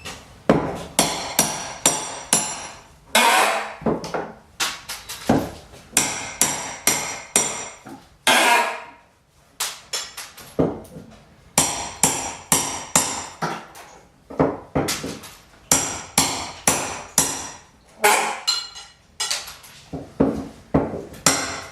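Hammer driving nails into wood, sharp strikes about two or three a second with a metallic ring. Twice the strikes give way to a longer, noisier screech of a nail being pulled out with the hammer's claw.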